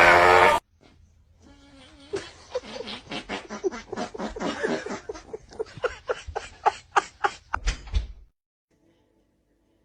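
A loud sound cuts off just after the start. Then a person laughs in a long run of rapid bursts, which become separate pulses of about four a second before stopping about eight seconds in.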